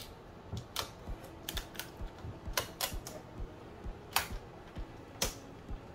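Irregular plastic clicks and light taps from hands working inside an Epson ET-8550 inkjet printer around the printhead carriage, pulling off the shipping tape and transit restraints; a few sharper clicks stand out near the middle and toward the end.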